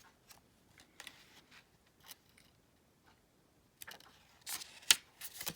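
Paper handling as the pages of a small oracle guidebook are leafed through: a few soft rustles and taps, then a busier patch of page rustling near the end with one sharp click.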